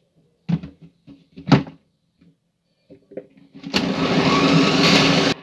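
A few clunks of the blender jar being handled on its base, then the countertop blender's motor running at full speed, grinding chopped cassava root with water, for about a second and a half before it cuts off suddenly.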